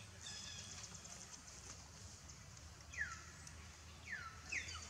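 Three short animal calls, each sliding down in pitch, starting about three seconds in, over a faint steady low hum and faint high chirping in the background.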